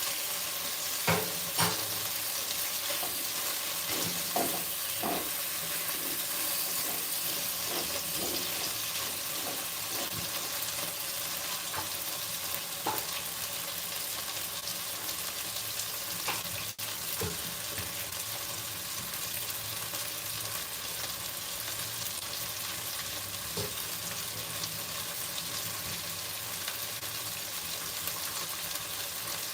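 Chicken pieces sizzling steadily as they fry and brown in oil in a pan, with a few sharp knocks of a utensil against the pan in the first few seconds and one more about halfway.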